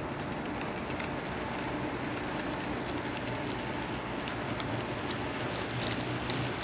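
HO-scale model diesel locomotive and cars running on the layout's track: a steady rolling rush of wheels and motor. It gets a little louder, with light ticking, as the train passes close by in the last couple of seconds.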